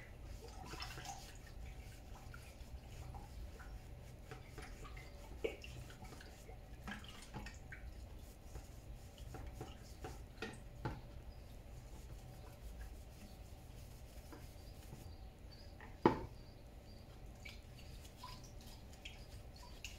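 Quiet dripping and splashing of liquid as a white plastic backpack-sprayer part is scrubbed and rinsed in a bucket of dirty washing liquid, with scattered small plastic clicks and knocks. One sharp knock comes late on.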